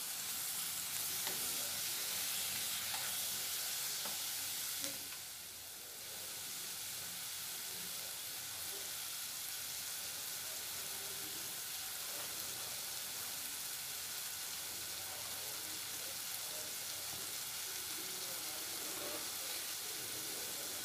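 Onions, tomatoes and cashews with spices sizzling in a pot, scraped and stirred with a spatula for the first few seconds, then left to sizzle steadily at a slightly lower level.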